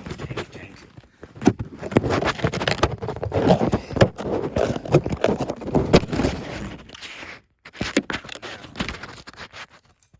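Rummaging and handling noise: irregular scraping, rustling and clicks of small objects being moved about, broken by a brief pause about seven and a half seconds in.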